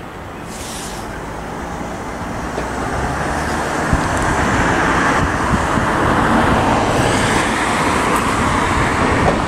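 Gatwick Express Class 387 Electrostar electric multiple unit approaching on the track, its running and wheel-on-rail noise growing steadily louder as it nears.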